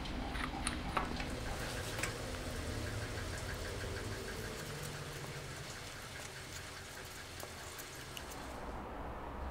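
Wood lathe running while a drill bit held in a keyed drill chuck bores into an ebony blank. A steady low motor hum with a faint, even ticking, and a few sharp clicks in the first two seconds.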